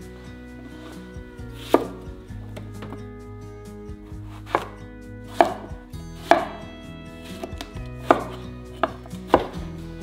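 Chef's knife slicing eggplant into thick pieces on a bamboo cutting board: sharp knife strikes against the board, about seven of them, unevenly spaced.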